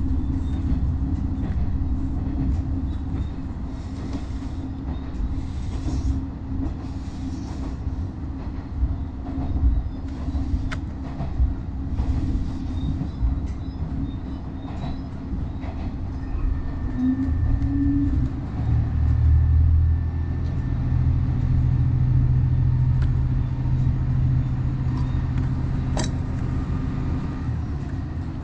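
Diesel railcar on the move, heard from inside the car: a steady low engine drone with the rumble of wheels on rail. The engine tone grows louder about two-thirds of the way through, and a few sharp clicks come from the wheels or the car body.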